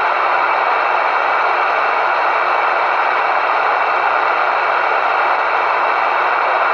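CB radio receiver putting out loud, steady static hiss through its speaker, with no voice coming through.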